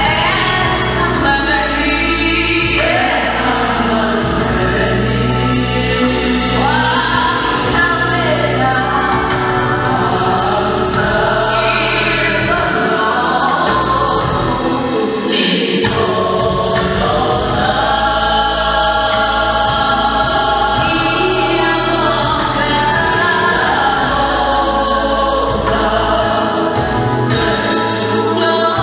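Live gospel vocal group of men and women singing together in harmony, with a steady low bass underneath the voices.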